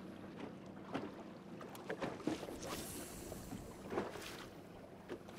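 Small wind-driven waves slapping irregularly against a bass boat's hull, several sharp splashes standing out, over wind and a steady low hum.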